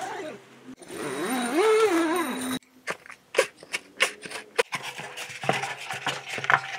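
A dog whining in wavering pitch for the first couple of seconds, then irregular sharp clicks, knocks and rustling as egg-carton pieces are stuffed into the firebox of a stainless G-Stove wood stove to kindle it.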